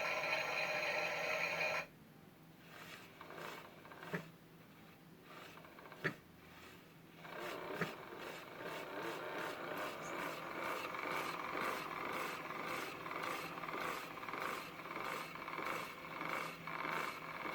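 Toy washing machine: a held electronic tone cuts off suddenly, three sharp clicks follow a couple of seconds apart, then its small motor and drum run with a rasping, rubbing churn that pulses about twice a second.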